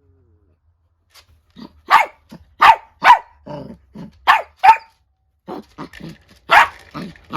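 Small dogs, a miniature dachshund and a chiweenie, barking angrily at each other. About six loud, sharp barks start about two seconds in, with lower, quieter growling sounds between them.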